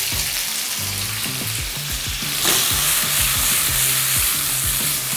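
Blanched squid sizzling in hot oil in a frying pan as julienned ginger and grated garlic go in and the pan is tossed. The sizzle swells louder about two and a half seconds in.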